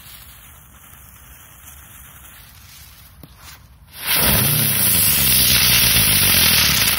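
A розочка ground-spinner firework: its fuse burns quietly for about four seconds, then the firework ignites with a loud, steady hiss of spraying sparks that lasts to the end.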